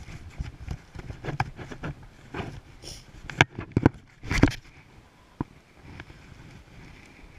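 Irregular knocks and rustling from close handling, as clothing and a phone are fumbled out of a pocket, with the loudest knocks about three and a half and four and a half seconds in and quieter in the last couple of seconds.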